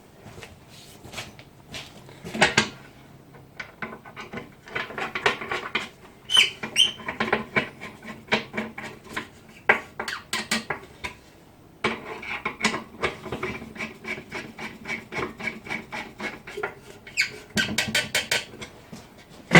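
Screws being driven by hand with a screwdriver into the metal parts of a gas barbecue: irregular clicks, clinks and short squeaks of metal on metal.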